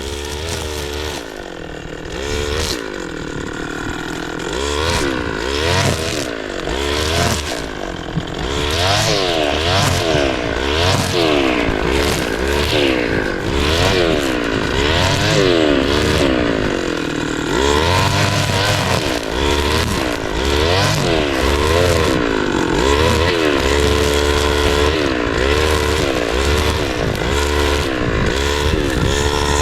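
Small two-stroke engine of a brush cutter revving up and down over and over, about once a second, as it slashes down old crops.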